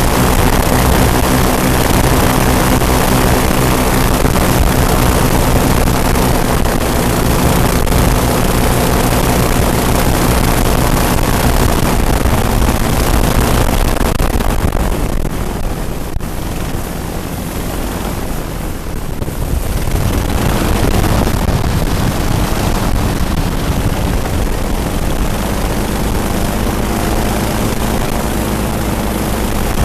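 Twin-engine airboat under way, its engines and propellers running with a steady drone and a rushing noise. The sound eases off for a few seconds past the middle, then picks back up.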